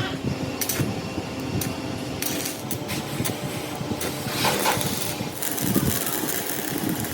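A machine running steadily, with scattered sharp clicks and knocks over the first half.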